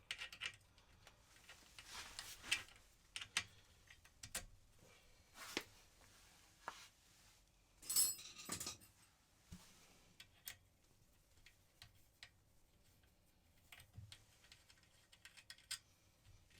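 Scattered light clicks and clinks of small metal parts and hand tools being handled during motorcycle clutch reassembly, with a louder ringing clink about eight seconds in.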